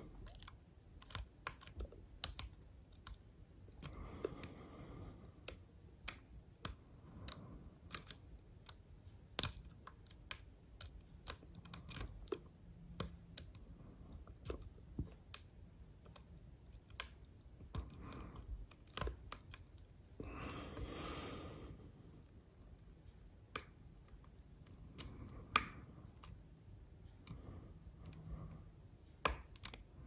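Irregular small metallic clicks and ticks of a hook pick working the pins of an Assa Ruko lock cylinder under tension from a tension wrench. A soft hiss comes about two-thirds of the way through.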